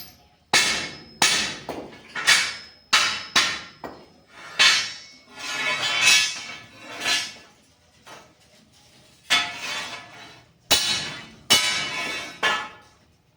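Hammer striking steel angle iron: an irregular series of sharp metallic blows, each ringing briefly, with a short pause about two-thirds of the way through.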